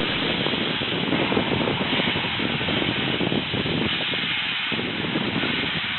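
Steam hissing steadily from the Peppercorn A1 Pacific steam locomotive 60163 Tornado standing in steam.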